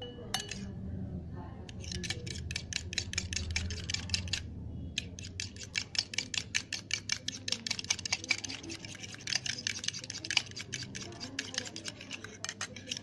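Egg being beaten by hand in a ceramic bowl: the utensil clicks fast and evenly against the bowl, with a short pause about four and a half seconds in.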